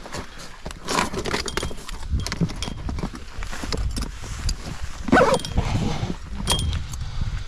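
Irregular knocks and thumps of a freshly caught zander thrashing against the boat's floor, over a low steady rumble.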